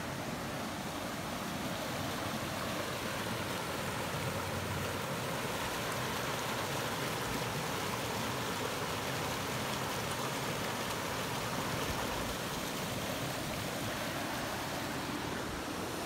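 Steady rush of a small creek flowing over rocks.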